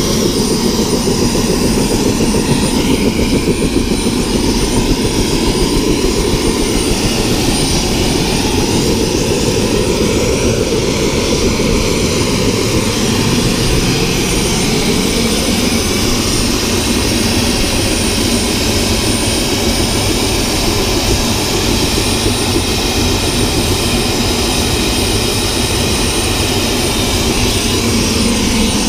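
Turbine helicopter with a two-blade main rotor running on the ground, rotor turning: steady loud engine noise with a high turbine whine and a rapid rotor beat.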